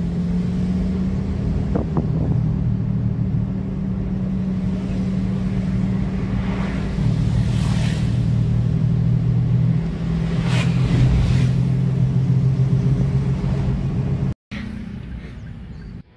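Toyota car's engine and road noise heard from inside the cabin while driving, a steady low drone that steps in pitch a few times. It breaks off abruptly near the end and comes back quieter.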